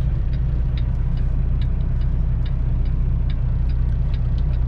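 Semi-truck's diesel engine idling with a steady low rumble, heard inside the cab, with a light, fairly even ticking over it.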